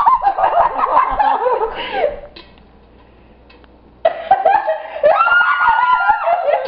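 People laughing and giggling in two bursts, with a lull of about two seconds between them. In the second burst one voice holds a high note for about a second.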